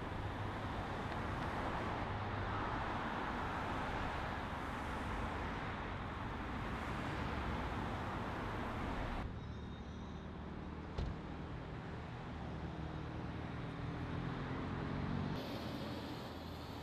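City street traffic: cars passing with a steady wash of road and tyre noise. About nine seconds in the sound changes abruptly to quieter traffic with a low engine hum, with a single sharp click a couple of seconds later.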